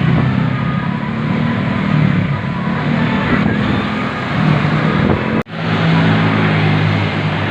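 Large bus running close by, a steady low drone with a faint higher tone early on. The sound cuts out abruptly for an instant about five and a half seconds in, then resumes.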